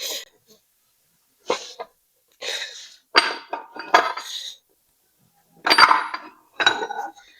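Steel transmission parts, gears and shaft pieces, clinking and clattering against each other as they are handled and set down, in about six separate bursts with a brief metallic ring.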